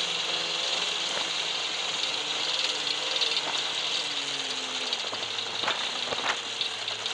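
Tracked snow groomer running as it drives along the trail: a steady engine drone with hiss and rattling. Its tone slides lower around the middle, and a few sharp knocks come near the end.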